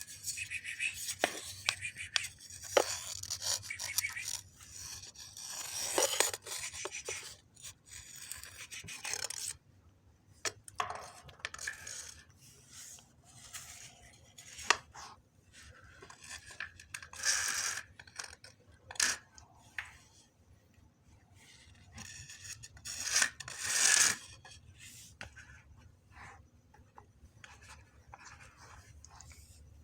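Irregular rustling and scraping noises in short bursts, with scattered clicks. They are busiest at the start and come again in a couple of louder bursts later on.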